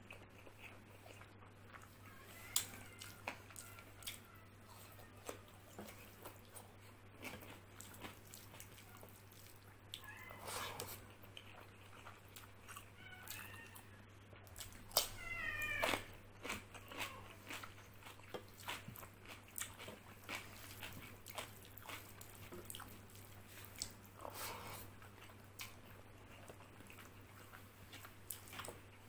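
Close-up eating sounds: chewing and wet mouth noises with many sharp clicks, fingers mixing rice and chickpea curry on a plate, and crisp bites of raw cucumber. A brief high wavering cry sounds about halfway through.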